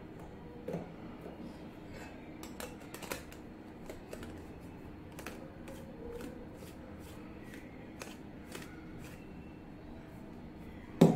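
Handling a brass murukku press: soft dough pushed into the metal cylinder, then light metal clicks and scrapes as the press is turned and closed. A sharp knock comes near the end.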